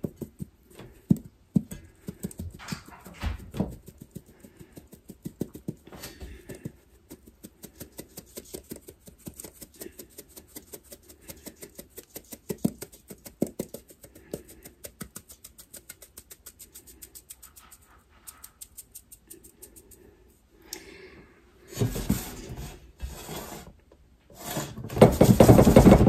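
Fine-mesh metal strainer shaken and tapped in a quick, steady rhythm over a stainless-steel pot to sift cassava flour through it, with louder clattering near the end.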